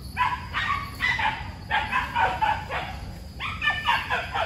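Hunting dogs barking and yipping in quick, repeated calls, about two a second.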